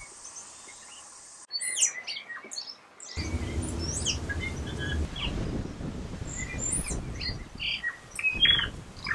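Birds chirping and calling, many short rising and falling notes, across a few spliced outdoor clips. From about three seconds in, a low rumble sits beneath the birdsong.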